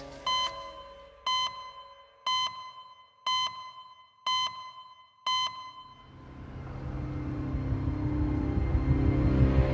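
Six short electronic beeps, one a second, each a clear single tone, ticking off seconds as a time-stamp sound effect. From about six seconds in, a low rumbling music swell builds.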